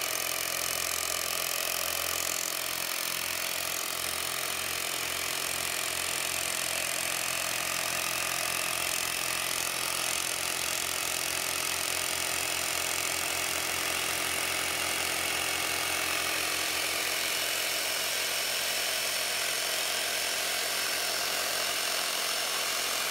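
A power hammer used to drive a copper ground rod running steadily, with a low rhythmic pulsing.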